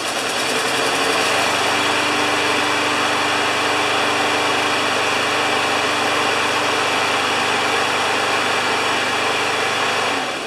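Briggs & Stratton engine on a Poulan Pro push lawn mower running steadily after a pull start, with no knocking now that the loose blade has been tightened. It starts to wind down right at the end as it is shut off.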